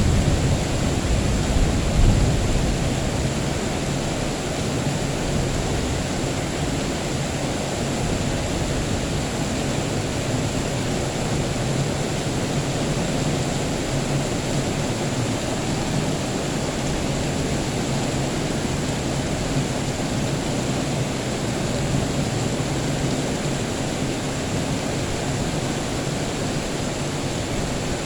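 Steady rain with the tail of a low thunder rumble dying away in the first few seconds.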